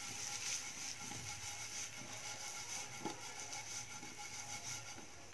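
Potato cubes being tossed in a nonstick frying pan, sliding and shuffling faintly over a soft steady hiss, with one sharp knock at the very end.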